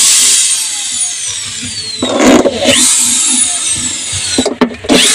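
Power drill driving screws into a plywood speaker cabinet: two runs of high motor whine, each sliding down in pitch as the screw bites in and loads the motor.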